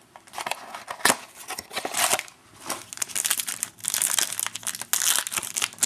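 Plastic wrapping of a trading-card pack crinkling and tearing as it is opened and handled, in irregular crackles with a sharp click about a second in.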